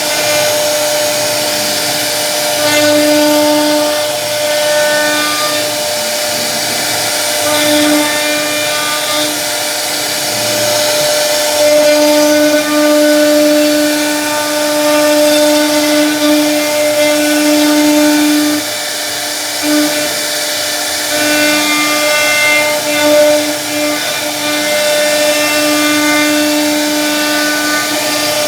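CNC router spindle running at a steady high whine while carving wood, with a constant hiss from the cutting bit. The whine grows louder and softer every few seconds as the bit's load changes along the carving path.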